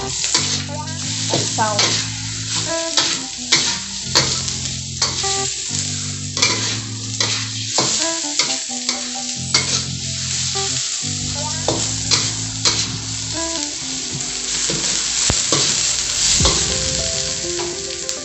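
Sliced sausage and onions sizzling in hot oil in a stainless steel wok while a metal spatula stirs and scrapes them, with frequent sharp clicks of the spatula against the pan.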